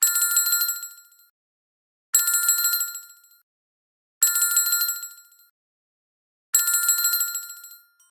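A small metal bell rung four times, each a rapid trill that rings out and fades over about a second, about two seconds apart.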